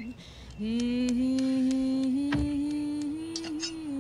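A woman's voice humming a drawn-out tune: one long held line that steps slowly up in pitch, with a few light clicks and one knock about two and a half seconds in.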